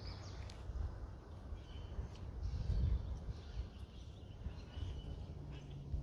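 Faint outdoor ambience: a steady low rumble with a few faint, short bird chirps, and occasional soft clicks and rubs from fingers working close to the phone's microphone.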